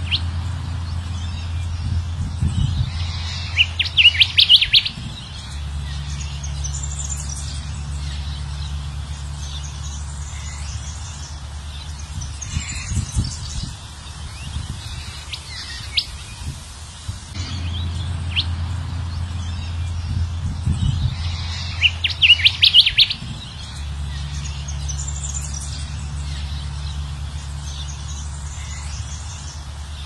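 A looped recording of kancilan emas (whistler) song used as a bird lure: clusters of quick high chirps and whistles, the loudest about 4 seconds in and again about 22 seconds in, the whole sequence repeating roughly every 17 seconds over a steady low hum.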